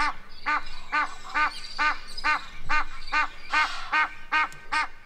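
An animal call: a short, rising-and-falling note repeated evenly about two times a second.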